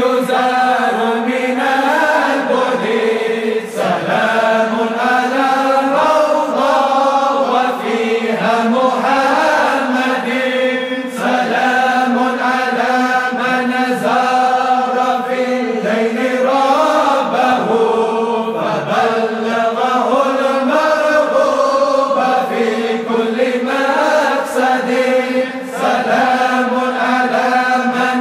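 Islamic zikr chanting: a sustained, melodic devotional chant with long pitch-bending phrases over a steady low note, one phrase running into the next with only brief breaks.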